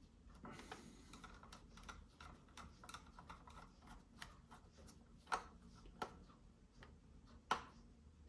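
Faint clicks and small scrapes of a screwdriver turning the screws that hold a new SSD in a laptop's drive bay, with three sharper clicks in the second half.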